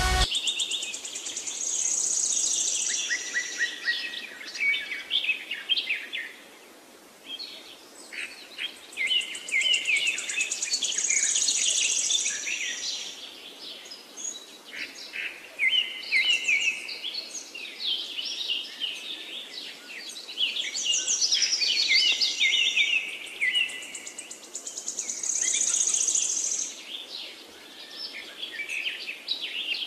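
Birds chirping and singing in many overlapping calls, with a high buzzy note that comes back every several seconds.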